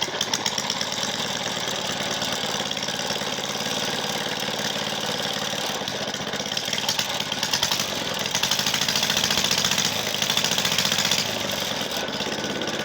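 Lawnmower engine running fast with its exhaust muffler removed and a paperclip fitted at the carburetor to push its speed up. The firing is rapid and uneven, and it grows louder for a few seconds from about eight seconds in.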